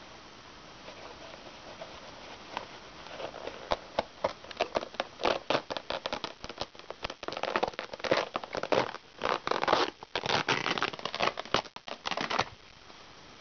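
Worn Levi's 501 denim being torn apart by hand: a rapid crackle of threads snapping in runs that starts a few seconds in, grows loudest over the later part and stops abruptly near the end.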